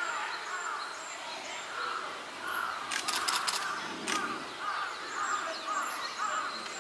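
Distant children's voices calling and chattering, mixed with bird calls. A rapid run of clicks comes about three seconds in.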